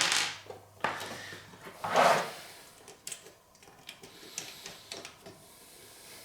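Scattered light clicks and knocks of bench equipment and leads being handled, with a short louder rustle about two seconds in.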